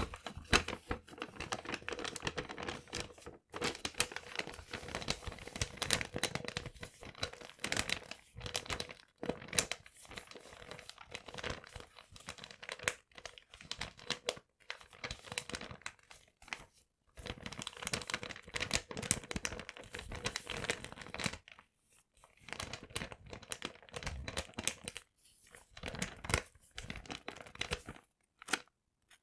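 Paper being crinkled and crumpled in irregular bursts of crackling, broken by several short pauses.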